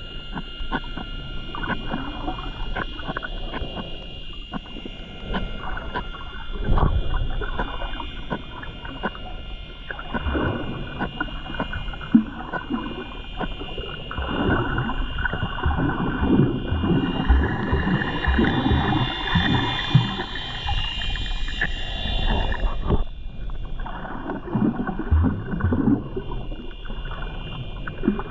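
Underwater sound from a snorkeling camera: a continuous crackle of short clicks and watery sloshing and bubbling, louder and busier through the middle, over a faint steady high whine.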